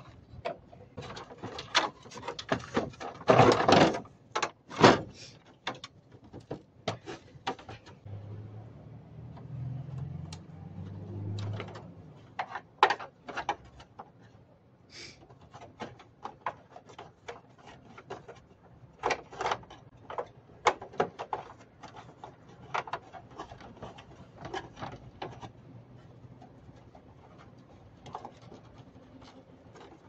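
Plastic clicks, knocks and rattles of a split air-conditioner indoor unit's casing and parts being handled and fitted back together, loudest as a quick cluster of knocks a few seconds in.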